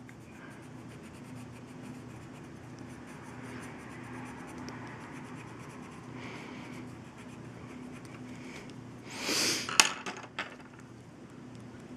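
Colored pencil scratching faintly on card stock as it colours in a small area, with a low steady hum underneath. Near the end comes a brief louder rustle followed by a couple of clicks.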